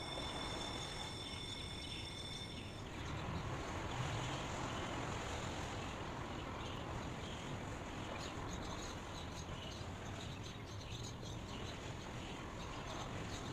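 Steady outdoor ambient noise, an even hiss-like background. A few steady high tones hold for the first three seconds, and faint short high chirps come and go throughout.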